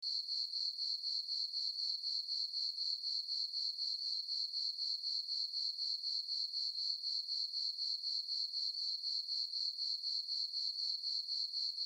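Cricket chirping in a quick, even, unbroken rhythm of high chirps, with nothing else heard.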